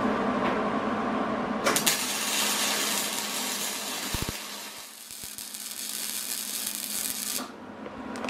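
Wire-feed (MIG) welder tack-welding a steel plate onto a go-kart frame: a crackling hiss starts about two seconds in, dips briefly midway and cuts off suddenly near the end. A steady hum comes before it.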